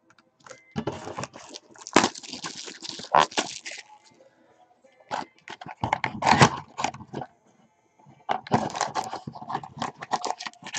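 A cardboard trading-card mini box being torn open and its foil-wrapped pack handled, heard as crackling, tearing and crinkling in three bursts separated by short pauses.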